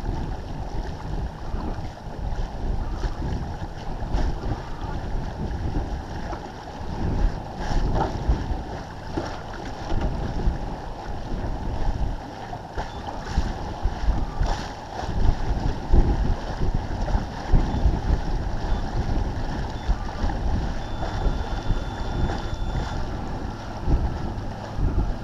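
Wind buffeting the microphone in uneven gusts over the rush and splash of water along the hull of a First 30 sailboat heeled under sail.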